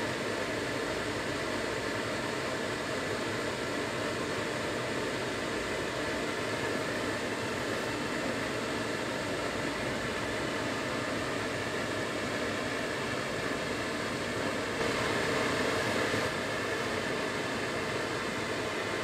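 Steady fan-like hiss of a standing VR Sm3 Pendolino electric train's ventilation and air-conditioning units, a little louder for a moment about fifteen seconds in.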